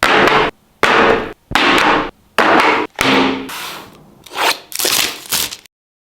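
Phone packaging being handled: five loud scraping, rubbing strokes of about half a second each, then three weaker ones. The sound cuts off abruptly near the end.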